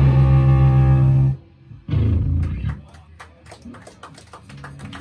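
Live band playing loud and full, then stopping abruptly about a second and a half in. A short, low vocal roar into the microphone follows. The rest is quieter, with sharp clicks and taps from the drum kit, before the band starts again.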